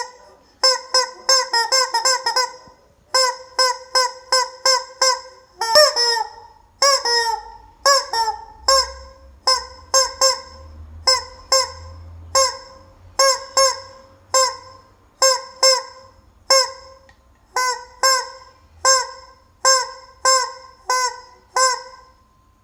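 Rubber chicken squeezed over and over, each squeeze a short, pitched, honking squawk. A quick run of squawks comes first, then they settle into a steady pace of about one or two a second.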